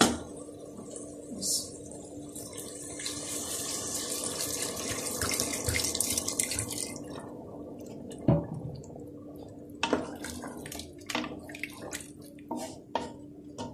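Water poured from a plastic bottle into an aluminium pressure cooker of browned chicken and black-eyed beans, a steady splashing pour for about seven seconds: half a litre added so the beans cook soft. Then a wooden spoon stirring the curry, with scattered knocks against the pot.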